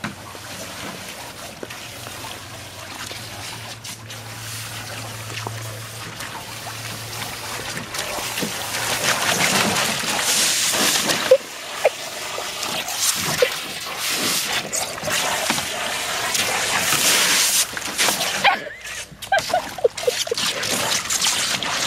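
Garden hose water splashing into a plastic kiddie pool while a black Labrador snaps and paddles at the stream; a steady rushing splash that grows louder about eight seconds in.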